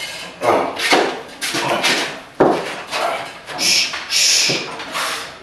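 Short, loud vocal bursts about every half second, like shouts and forced breaths, during a heavy barbell back squat. There is a sharp knock about two and a half seconds in and two hissing breaths near the end.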